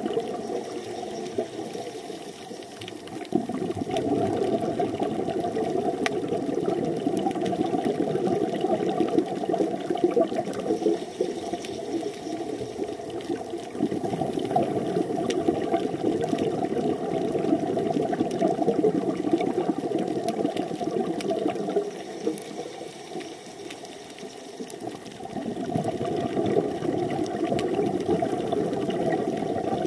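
Underwater water noise, a steady low rushing that drops quieter for a few seconds twice, about two seconds in and again about three-quarters through.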